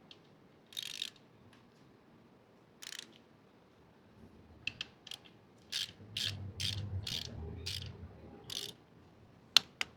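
Hand ratchet wrench clicking in short strokes, a few scattered at first, then a steady run of about two strokes a second, followed by two sharp metal clinks near the end.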